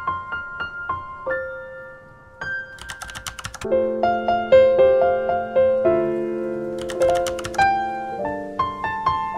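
Background music: a light, piano-like melody of clear plucked notes, with short runs of fast clicks that come back every few seconds.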